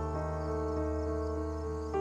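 Background music of slow held chords, moving to a new chord near the end.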